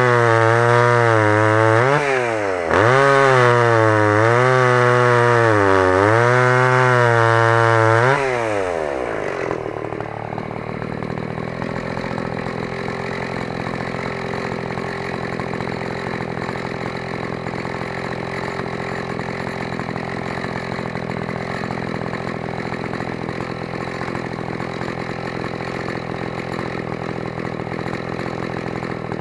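Stihl 015 one-handed chainsaw's two-stroke engine running at full throttle while cutting a log, its pitch dipping and recovering as the chain bites, with a brief drop about two seconds in. About eight seconds in the throttle is let off and the engine falls to a steady idle.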